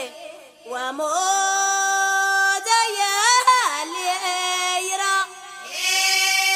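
Women singing long held notes of Amazigh ahwach song, sliding up into each note and ornamenting the pitch in the middle. The note breaks off about five seconds in and is taken up again on the same pitch near the end.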